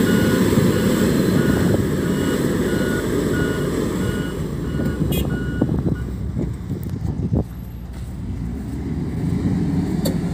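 XCMG motor grader's reversing alarm beeping at an even pace over the steady rumble of its diesel engine, the sign that the machine is backing up. The beeping stops about six seconds in, leaving the engine running, with a couple of brief clicks.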